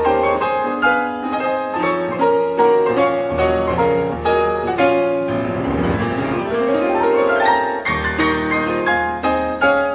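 Piano music playing, a steady run of many quick notes with a sweeping run up and down the keyboard about six seconds in.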